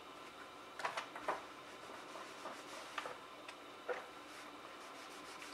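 A mini quilting iron and cotton fabric pieces being handled on a small padded ironing board while seams are pressed. There are a handful of light taps and clicks, the clearest about a second in and near four seconds.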